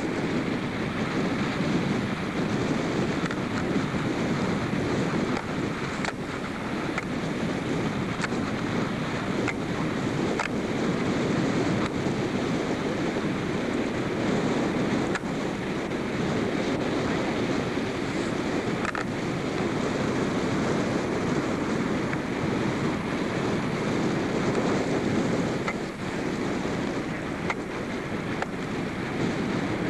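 Steady wind rushing and buffeting on the camcorder microphone, with a few faint ticks.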